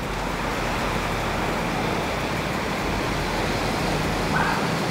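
Steady wind rush and road noise from a moving KTM Duke 200 motorcycle, its single-cylinder engine running underneath at an even pace.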